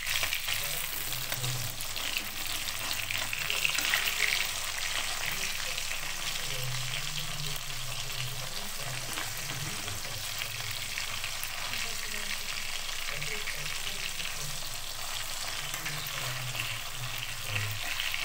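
Pabda fish sizzling steadily in hot oil in a kadai on a low flame, with a metal spatula scraping against the pan now and then as it is worked under the fish to turn them.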